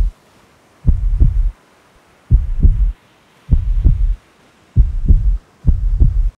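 Heartbeat sound in the soundtrack: loud, low double thumps in a lub-dub pattern, five beats a little over a second apart, with a faint hum between them.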